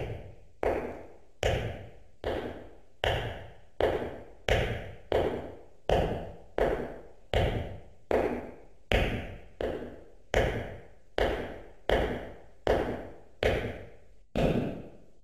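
A steady run of sharp knock-like beats, a little more than one a second, each ringing briefly as it fades.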